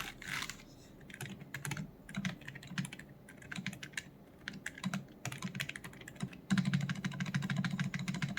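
Typing on a mechanical keyboard fitted with Outemu Silent Tom silent switches. Scattered keystrokes at first, then faster, denser and louder typing from about six and a half seconds in.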